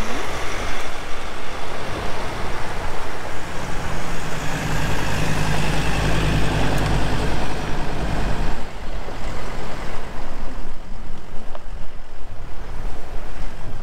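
A four-wheel-drive ute's engine and tyres on a dirt road as it drives past close by. It is loudest about four to eight seconds in, then fades away, leaving steady road and wind noise.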